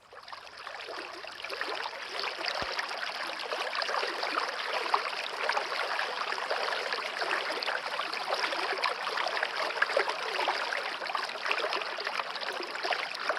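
Steady tropical rainforest rain, a dense patter of countless drops, fading in over the first couple of seconds.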